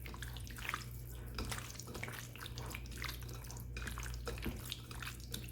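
Chicken pieces being mixed by hand into a yogurt and spice marinade, making irregular wet squelches and small clicks.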